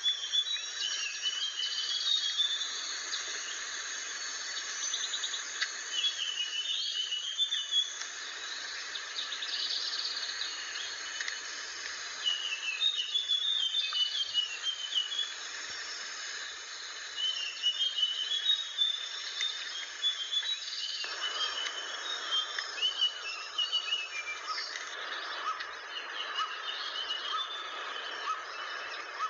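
Blue flycatcher singing: short, high, warbling phrases repeated every few seconds over a steady background hiss of insects or ambient noise.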